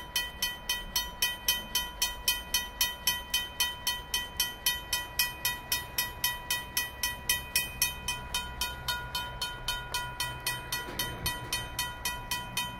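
Mechanical railroad crossing bell (RACO) ringing steadily, about three and a half strikes a second, over a low rumble.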